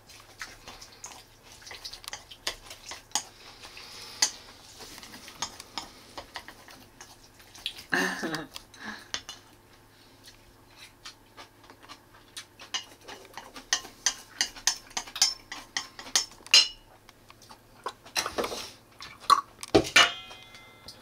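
Dishes and utensils clinking and clattering while rice is being made: a run of sharp clicks and knocks, busiest in the last few seconds. There is a short voice-like sound about eight seconds in.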